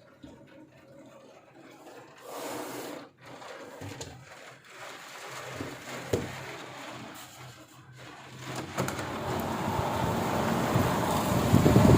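Squall wind and heavy rain, an even rushing noise that swells to loud, with gusts buffeting the microphone near the end.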